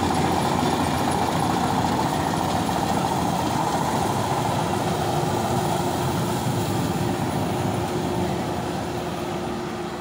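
Marksan K-BOS Mudmaster MS-1200 tracked rice combine harvester running: a loud, steady mechanical drone of engine and machinery. It grows somewhat fainter over the last few seconds as the machine moves away.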